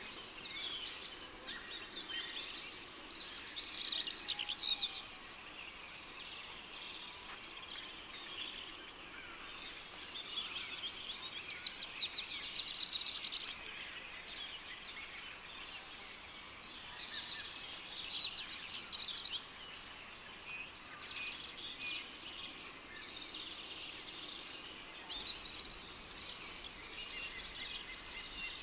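Rainforest ambience: a cricket chirping in an even, unbroken pulse, while birds call in bouts of rapid trilled notes every several seconds.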